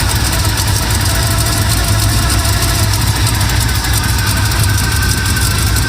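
Squarebody Chevrolet K5 Blazer engine idling steadily with its new fan spinning. The engine runs on headers and has an exhaust leak there.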